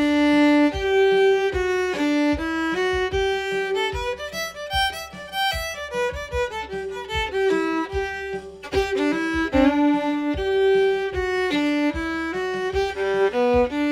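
Solo fiddle playing improvised bluegrass licks on the G major pentatonic scale, a quick stream of bowed notes moving up and down.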